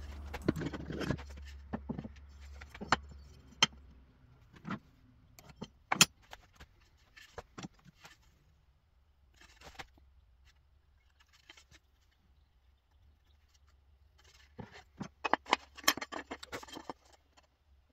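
Scattered metallic clinks, clicks and knocks of tools and hardware being handled, thickest in the first few seconds and again near the end, with a low hum fading out about four seconds in.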